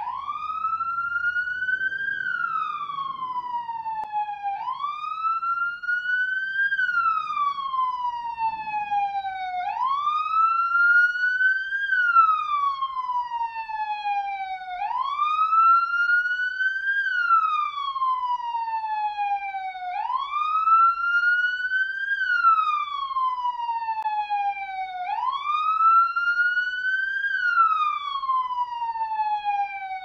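Police car siren sounding in a steady wail: each cycle rises quickly over about two seconds, then falls slowly for about three, repeating roughly every five seconds.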